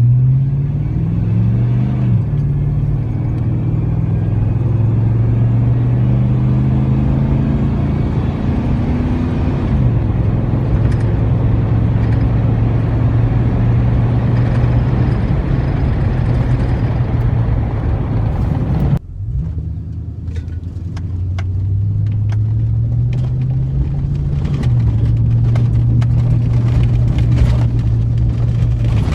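Exhaust of a 5.3L V8 through Cherry Bomb Salute mufflers, accelerating so its pitch rises, dropping back at each upshift, then holding a steady cruise. The sound cuts off abruptly about two-thirds of the way through and picks up again with another rise and upshift.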